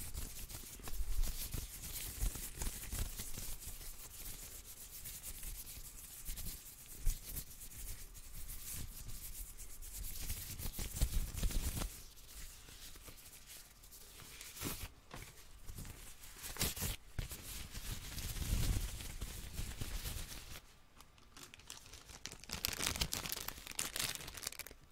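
Hands in thin clear plastic gloves rubbing and rustling close to the microphone, in uneven swells with a couple of brief pauses.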